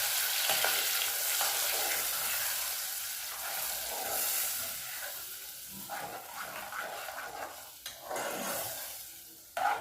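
Calabresa sausage and bacon sizzling in oil in a frying pan while being stirred; the sizzle grows fainter over the second half.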